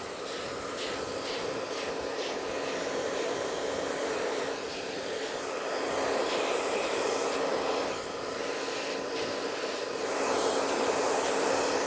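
Handheld hair dryer blowing steadily with a constant hum, swelling in loudness about six seconds in and again near the end.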